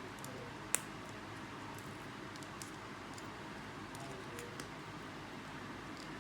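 Small plastic Lego pieces being handled and pressed into place: one sharp click about a second in, then a few fainter ticks, over a steady low hiss.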